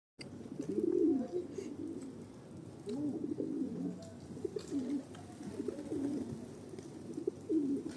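Pigeons cooing again and again, low swooping coos that repeat every second or so and sometimes overlap.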